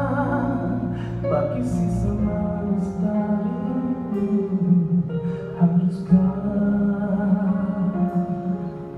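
Music: a slow song with a voice singing over a band with a steady bass line.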